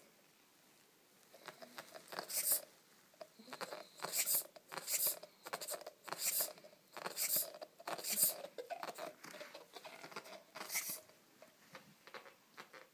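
A Weimaraner chewing and mouthing a rubber ball, in irregular bursts of wet, crackly chewing from about a second and a half in until near the end.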